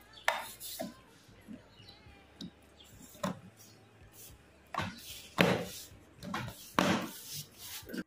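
The cover of a refrigerator's touch-control display panel being laid on and pressed into place by hand: a series of light clicks and knocks, with a few longer scraping rubs in the second half.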